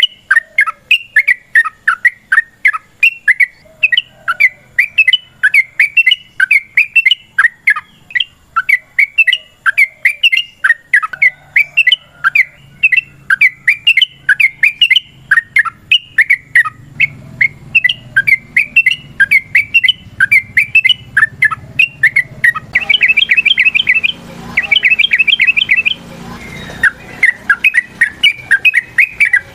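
Yellow-vented bulbul (trucukan) singing vigorously in a long, unbroken run of quick bubbly chattering notes, several a second. Twice near the end it breaks into a faster trill.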